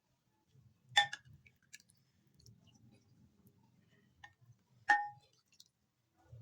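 Cutlery clinking against a plate twice, about four seconds apart, each hit ringing briefly.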